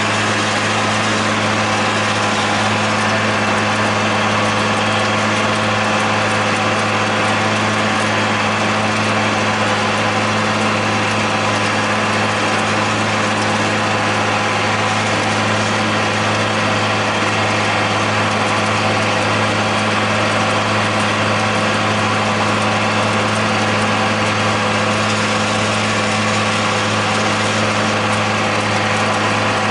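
John Deere 8100 tractor's six-cylinder diesel engine running steadily at working speed while mowing hay, heard from inside the cab: an even drone with a strong low hum that does not change.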